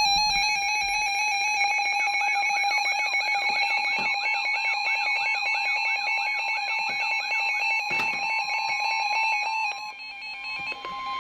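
Weather radio alert alarm: rapid electronic beeping with a siren-like warble rising and falling about twice a second. About ten seconds in it gives way to a single steady tone, the weather radio attention tone that comes before a warning.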